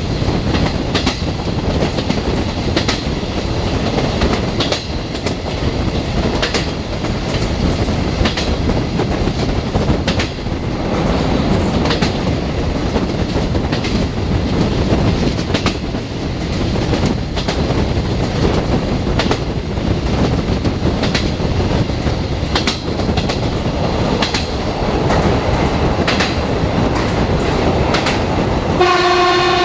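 Train running at speed over jointed track, heard from aboard: a steady rumble with the clack of the wheels over rail joints about every two seconds. Near the end the train's horn sounds one steady tone.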